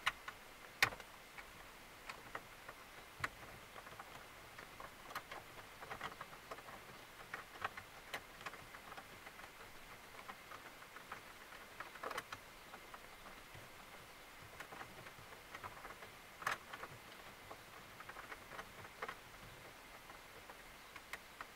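Faint, irregular clicks and ticks of a T20 Torx screwdriver turning out the captive retaining screw under a Mercedes W211 Audio 20 head unit, with a sharper click about a second in and others near the middle and later on.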